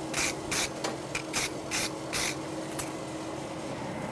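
Rhythmic scrubbing strokes on a steel horseshoe, about three a second, stopping a little over two seconds in: a hand tool scraping scale from the shoe between forging heats.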